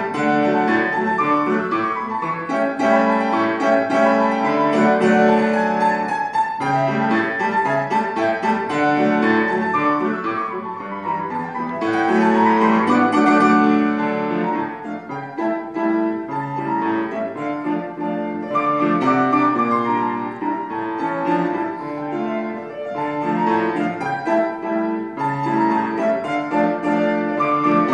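Solo classical piece played on a Petrof grand piano: dense, quick figures across the keyboard, with a fast run rising up the keys about twelve seconds in.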